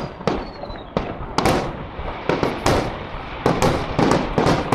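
Fireworks display: aerial shells bursting in a string of sharp bangs with crackle between them, sparse at first and then several a second from about a second and a half in. A thin, slightly falling whistle sounds in the first second.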